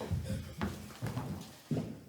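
A few dull thumps and shuffling on a stage floor, with knocks about a second apart: an actress collapsing in a faint and others moving to her.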